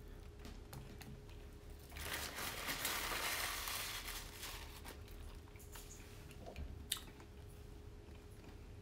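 Quiet sounds of eating at the table: a crinkling rustle that lasts about two seconds, starting about two seconds in, then a few light clicks.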